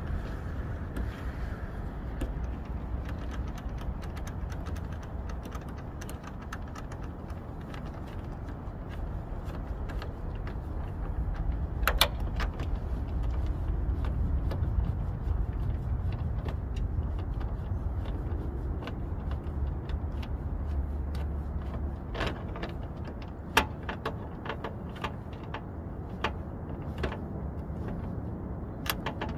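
Scattered sharp plastic clicks and knocks as the 2009 Chevy Cobalt's headlight housing is handled and pressed into its mounts, one loud click about halfway through and a run of them near the end, over a steady low rumble.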